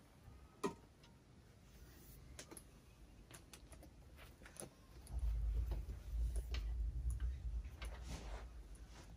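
Scattered light clicks and taps from objects being handled, with a sharper click near the start. A low rumble of handling or bumping runs from about halfway through to near the end.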